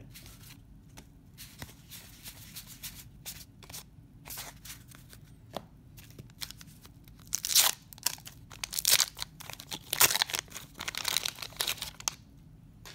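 A 1991 Donruss baseball card wax pack being torn open by hand, its paper wrapper tearing and crinkling in several loud bursts over about four seconds in the second half. Before that, soft rustling of cards being handled.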